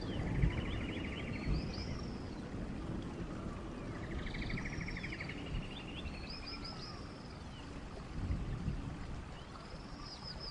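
Animal calls, arching chirps and a rapid buzzy trill, recurring about every four to five seconds over a low rumbling hiss.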